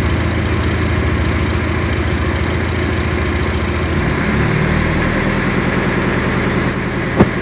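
Mitsubishi 4D30 four-cylinder diesel engine idling steadily, freshly started after two years of standing, with help from preheated glow plugs. Its note shifts about four seconds in, and a single sharp click sounds near the end.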